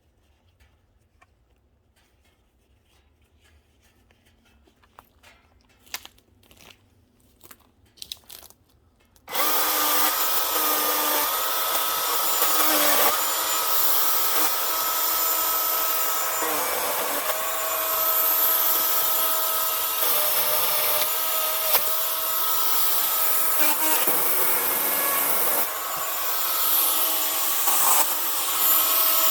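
Milwaukee M18 battery chainsaw: a few faint clicks, then about nine seconds in the electric motor starts suddenly and runs steadily with a high whine while the chain cuts through a jack pine log.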